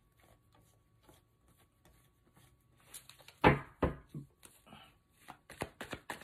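Tarot cards handled and shuffled by hand: soft card flicks, then a couple of sharp slaps about halfway through as cards are put down on the table, followed by quick card clicks near the end as the shuffling resumes.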